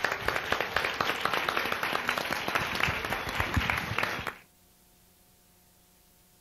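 Audience applauding at the close of a panel discussion, dense clapping that cuts off suddenly a little over four seconds in, leaving only a faint steady hum.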